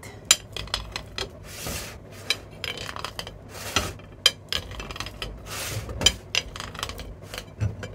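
A metal fork cutting through an eggplant omelette, scraping and clinking against a ceramic plate. Short clicks come throughout, with a few longer scrapes between them.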